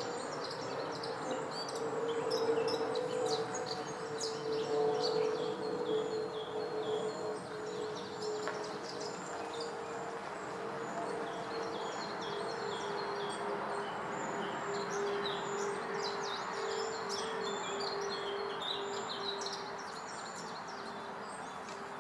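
Woodland birds chirping and calling in many short, high notes over a steady background hum whose single tone slowly drops in pitch.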